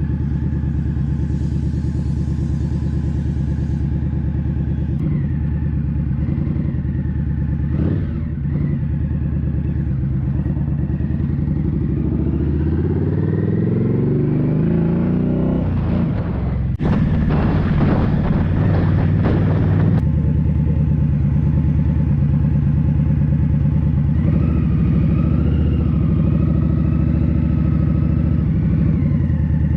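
Indian Scout Bobber's V-twin engine running, its pitch rising for a few seconds about halfway through as it accelerates, then breaking off sharply and settling back to a steady run.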